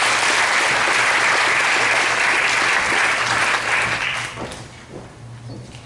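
Audience applauding at the end of a talk. The clapping holds steady, then dies away about four seconds in.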